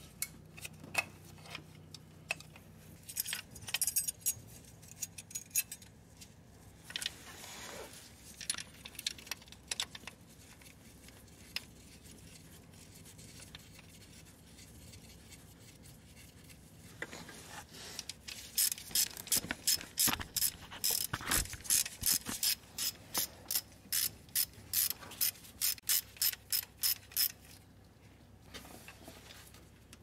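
Hand ratchet wrench clicking in a long run of quick even strokes, about three clicks a second, as a bolt on a timing chain guide is run in. Before that, scattered light clinks and rustling of metal parts being handled.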